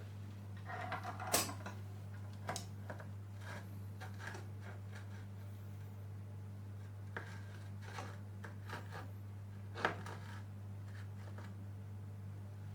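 Scattered light clicks and clatter of parts being handled while a new controller board is fitted into an electric unicycle, the sharpest clicks a second or so in and again near the ten-second mark. A steady low hum runs underneath.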